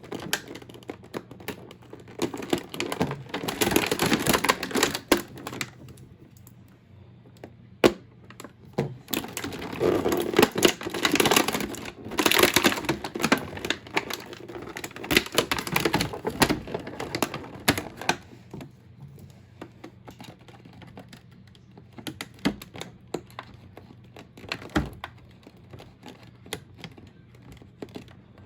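Hands working at a doll's box and plastic packaging: rapid clicks, taps and rustles in bursts, with quieter stretches between.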